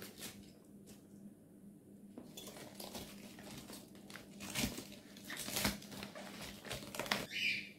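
Shredded cabbage being pushed down by hand into a plastic pickling jar: crinkly rustling of the leaves against each other and the plastic. It is faint at first and gets louder and busier in the second half.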